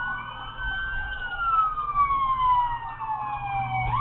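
Police siren on a slow wail cycle, heard from inside a patrol car. It holds high, falls gradually over about three seconds, then sweeps quickly back up near the end. A steady low engine and road hum runs underneath.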